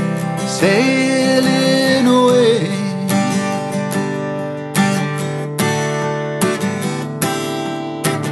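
Steel-string acoustic guitar strummed, a chord struck and left ringing a little more than once a second. About half a second in, a loud held note, likely a wordless sung note, slides up, holds, then falls away after two seconds.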